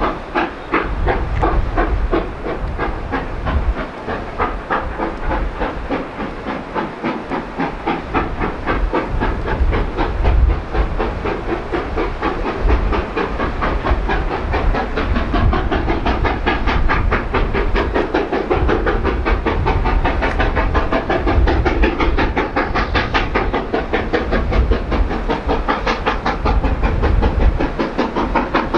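BR Standard Class 4 4-6-0 steam locomotive 75014 working hard under steam, its exhaust beats coming in a fast, even rhythm over a steady hiss. The beats grow clearer in the second half as the engine draws nearer.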